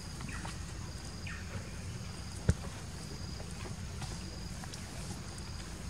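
Outdoor ambience of short, high insect chirps repeating over a steady low rumble, with one sharp click about two and a half seconds in.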